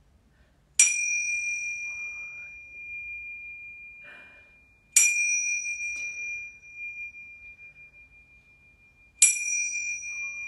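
A pair of tingsha cymbals struck together three times, about four seconds apart. Each strike leaves a high, clear ringing tone that fades slowly.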